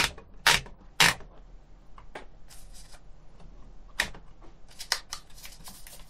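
A sheet of paper being rolled into a typewriter by turning the platen: a few sharp clicks in the first second and another about two seconds in, then a quick run of small clicks with paper rustling.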